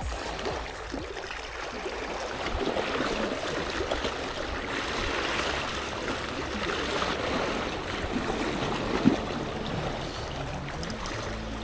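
Seawater sloshing and washing, a steady rushing noise, with one brief sharper knock or splash about nine seconds in.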